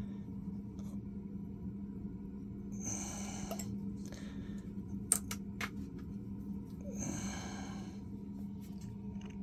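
A steady low hum, with two breathy hisses of just under a second each, about three and seven seconds in, and a few sharp clicks around the middle.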